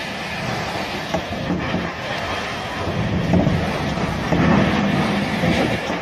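Hurricane wind gusting against the microphone with a low rumble, growing stronger about halfway through.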